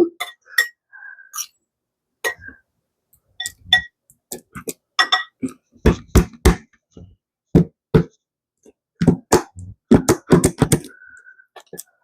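Nearly empty plastic squeeze bottle of ranch dressing being squeezed over and over, sputtering out the last dressing with an irregular run of short wet pops and splats as air forces through: the bottle is running out.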